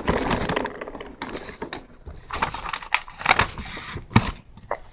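A small piece of rubber scrubbed over paper to erase pencil marks, an irregular rubbing and rustling in patches, with a few light knocks of handling.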